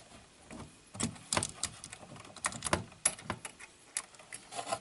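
Scattered small metallic clicks and scrapes as fingers work a coil tension spring off its hook inside a cassette deck mechanism.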